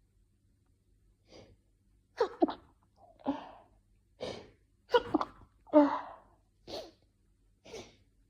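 A woman's rapid fit of short hay-fever sneezes, one about every second, with the loudest near the middle. These are the dry, itchy sneezes of pollen irritating the nose.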